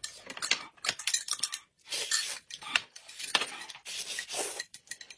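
Eating sounds: noodles slurped noisily in several bursts, with utensils clicking and clinking against a plate and a glass cup.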